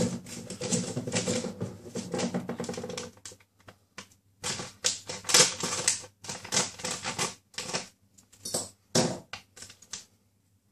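Clear plastic parts bag crinkling and crackling as it is cut open with a knife and pulled apart by hand. The sound is a dense rustle at first, then a run of separate short crackles that stops shortly before the end.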